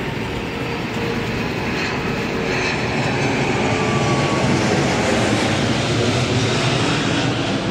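A twin-engine jet airliner flying low overhead: a steady jet engine noise that swells to its loudest about halfway through, then eases slightly.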